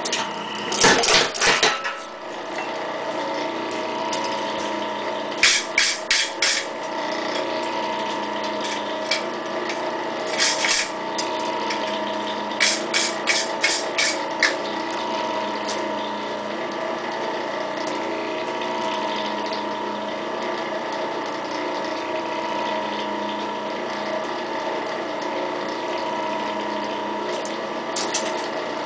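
Tire power hammer striking hot steel in short bursts of sharp blows, the longest a run of about two to three blows a second, over a steady machine hum.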